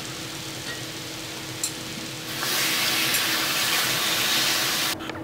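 Kitchen tap running into a stainless-steel sink over freshly boiled spinach in a colander, turned on about halfway through and cut off abruptly near the end.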